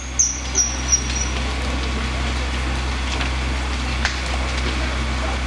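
A large building fire burning: a steady rushing noise with a few sharp cracks, over a constant low engine-like hum. A quick series of high beeps, about three a second, fades out about a second in.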